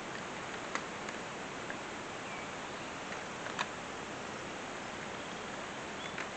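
Steady outdoor hiss, with a few faint sharp clicks and ticks, the loudest about three and a half seconds in, and a couple of brief high chirps.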